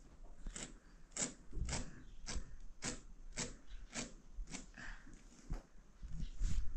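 Paddle hairbrush with bristles drawn through a child's hair in regular strokes, a little under two a second.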